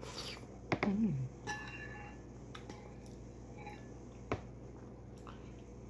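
Metal spoon clinking and scraping in a ceramic bowl of thick porridge, with a ringing clink about a second and a half in and a sharp tap a little past four seconds. Near the start comes a slurp of porridge off the spoon and a short hum from the eater, falling in pitch.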